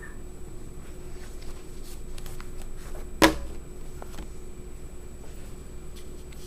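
Room tone with a steady low hum and a few faint clicks, broken once, a little past the middle, by a single sharp knock.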